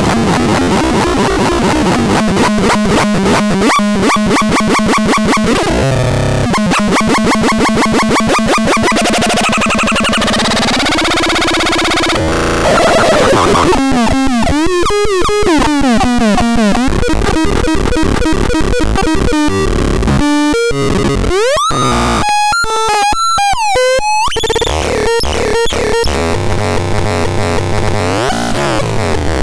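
Vodňánské Kuřátko synthesizer being played: pitched tones chopped into fast pulses for the first twelve seconds or so, then wavering pitch bends, and quick up-and-down sweeps broken by short gaps about two-thirds through. A steadier low tone comes in near the end.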